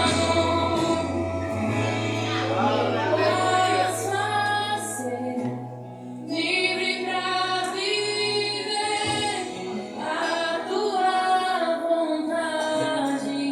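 Gospel worship song: female voices singing together over a sustained bass.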